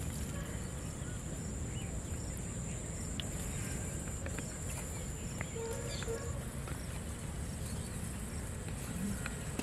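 Rural outdoor ambience: a steady low background rumble under a thin high steady whine that stops about six seconds in, with faint scattered bird chirps.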